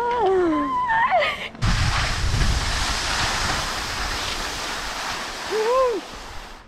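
A girl laughing for about a second and a half, then a sudden cut to a steady rush of skis sliding on snow and wind over the action camera's microphone while skiing downhill. A short rising-and-falling vocal call comes near the end.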